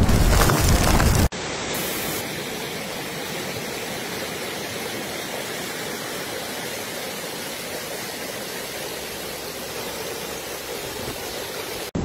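Strong wind buffeting the microphone for about the first second, then an abrupt cut to the steady rush of a flood-swollen river pouring past bridge piers.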